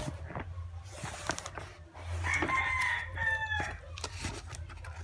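A rooster crowing once, about two seconds in, a drawn-out call that falls in pitch at the end. Scattered clicks and rustling from the parcel being handled.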